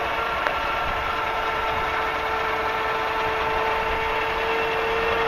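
An engine running steadily: a constant hum that holds one pitch.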